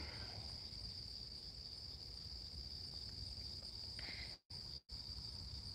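A steady, high-pitched chorus of night insects chirring without a break, over a low background rumble. The sound cuts out twice for a split second about four and a half seconds in.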